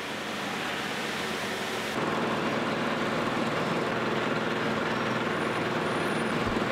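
Conveyor machinery carrying sprouted tulip bulbs runs steadily with a dense rattle, louder from about two seconds in.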